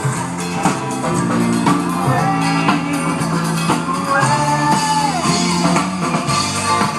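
A live rock band playing, with a drum kit keeping a steady beat under bass and guitar. A held melody line slides down partway through.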